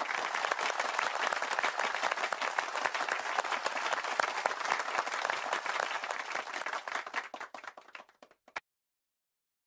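Crowd applauding: dense clapping that thins into a few scattered claps and stops abruptly about eight and a half seconds in.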